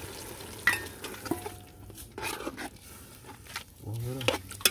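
A metal spoon clinking and scraping against an aluminium cooking pot as vegetable soup is stirred, with a few separate knocks. Water pouring into the pot stops about a second in.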